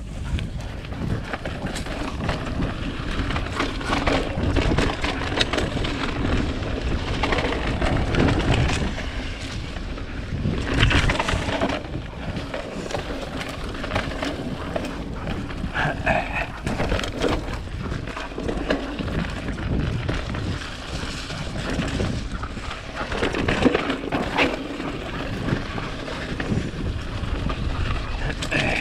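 Mountain bike riding down a dirt trail: wind rushing over the microphone and tyres rolling, with frequent short clattering knocks from the bike over the bumps.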